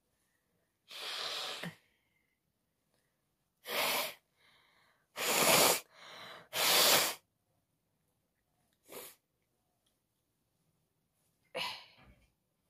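A person sneezing again and again. Three loud sneezes come close together in the middle, with quieter sneezes or sharp breaths before and after.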